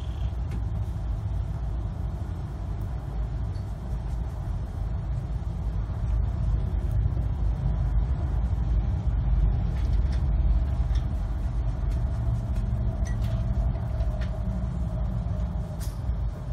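A steady low rumble, a little louder in the middle, with a few faint clicks.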